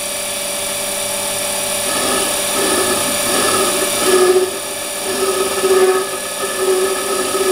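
Warco WM180 mini lathe running while a Glanze indexable chamfering tool plunges into the spinning bar. From about two seconds in, a ringing chatter comes and goes over the steady motor whine, a sign that this tool is not ideal for plunge cuts.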